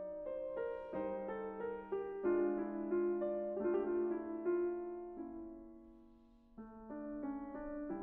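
Background piano music: a gentle run of notes and chords that dies away about five to six seconds in before a new chord starts.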